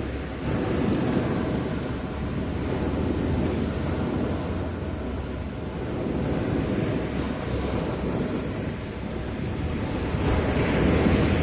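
Sea waves breaking and washing on a beach, with wind rumbling on the microphone; the surf swells several times, loudest near the end.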